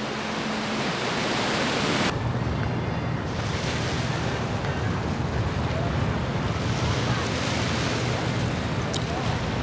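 Steady wind and water noise, with wind rumbling on the microphone. The sound changes about two seconds in: the high hiss drops and a steady low hum comes up.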